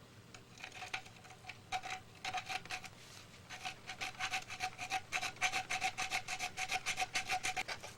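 Coarse hand file rasping on the plastic hull of a Revell Gato submarine model, opening it up for the propeller shaft and running gear. The strokes are few and spaced at first, then come quickly and steadily from about halfway in, each with a faint ring.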